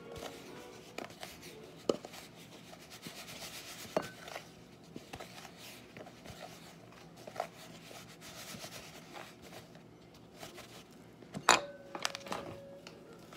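Fish fillets being rubbed and turned by hand in cornmeal inside a plastic tub: a gritty rubbing, with a few light knocks of the tub and a louder knock near the end.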